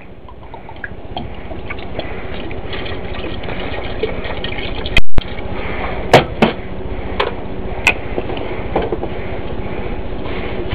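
Sambuca poured steadily into a blender jar, a filling sound that builds over the first couple of seconds and then holds. A few sharp clicks and knocks of handling run through it, and there is a brief loud pop near the middle.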